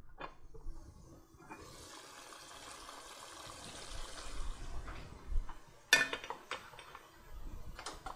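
Lid lifted off an aluminium pot of lamb gravy cooking on a low flame. The uncovered gravy simmers with a steady hiss for a few seconds, then comes a sharp clank about six seconds in, with a few lighter knocks after.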